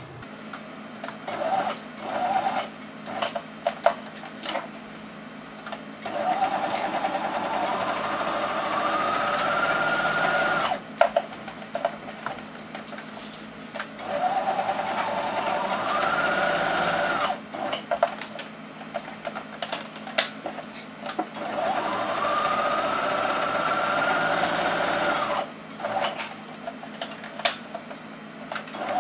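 Small electric sewing machine stitching in three runs of several seconds each, its motor whine rising in pitch as it speeds up and then stopping abruptly, as it topstitches around the edge of a small fabric pillow. Light clicks and taps fall in the pauses between runs.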